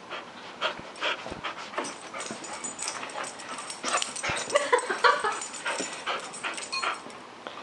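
A dog whimpering and giving short excited yips while it runs about in play, with scattered scuffs and knocks from its running. The yips come loudest about four to five seconds in.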